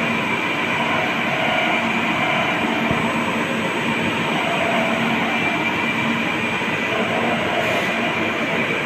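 CNC machine running a machining cycle behind its closed enclosure door, with coolant on the glass: a steady mechanical hiss and hum with a faint, steady high whine.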